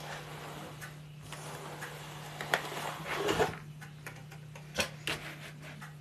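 Scattered clicks and knocks from boilie-making tools and dough being handled, over a steady low hum; the loudest clatter comes about three seconds in.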